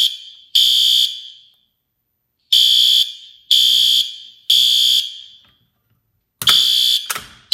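System Sensor P2W horn/strobe sounding the code-3 temporal evacuation pattern at its lowest volume setting: high-pitched half-second horn blasts in groups of three, with a pause between groups, triggered by a pulled fire alarm pull station. Near the end the horn cuts short, followed by a couple of sharp clicks.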